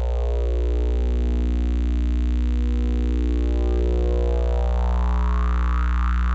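Electronic oscillator drone: a steady, loud low hum with a dense stack of overtones, while the upper overtones shimmer in slow sweeps.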